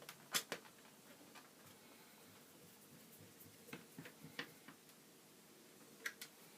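Scattered sharp clicks and taps of small computer parts being handled during reassembly: a loud pair just after the start, a cluster around four seconds in, and two more near the end.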